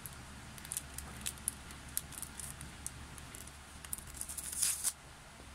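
Plastic packaging handled by hand as a photo card is worked out of it: scattered light crinkles and clicks, thickening into a short burst of crinkling near the end.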